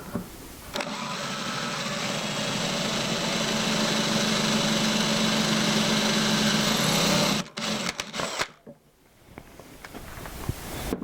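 Electric drill running steadily for about six seconds as it bores a handle screw hole through a cabinet door, then stopping abruptly, followed by a few clicks.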